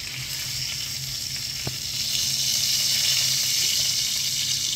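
Chicken thighs sizzling in olive oil and butter in a frying pan: a steady hiss that grows a little louder about two seconds in, over a steady low hum.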